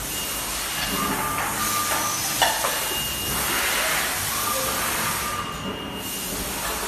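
Four-station turntable screen printing machine running: a steady hiss with thin, high intermittent tones and one sharp clack about two and a half seconds in.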